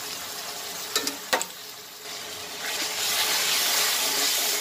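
Onions, spices and water sizzling in a hot karahi, with two sharp knocks of the spoon against the pan about a second in. From about three seconds in, stirring sets the curry base sizzling louder.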